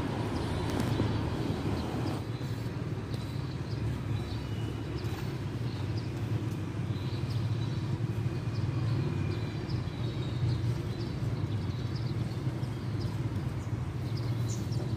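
Steady low outdoor background rumble, like distant traffic, with faint short high chirps scattered through it.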